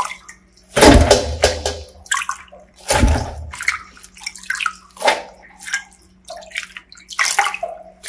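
Water splashing and dripping as handfuls of washed cabbage are scooped out of a stainless steel bowl of water and dropped into a perforated steel colander tray. There is a splash about every two seconds, with trickling between.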